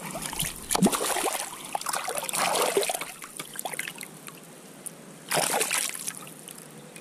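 Water splashing and sloshing as a hooked bass thrashes at the surface while it is brought in, with louder splashes about a second in, around two and a half seconds and just after five seconds.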